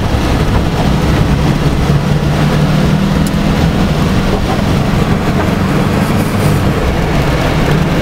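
Car engine droning steadily at highway cruising speed, heard inside the cabin, with tyre and road noise on wet pavement.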